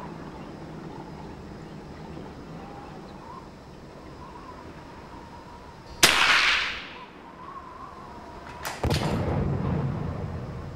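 A single .22 LR shot from an SMLE Lee-Enfield No. 1 Mk III rifle about six seconds in: a sharp crack with a short echoing tail under the firing point's roof. About three seconds later come two quick clicks and a longer rattling noise.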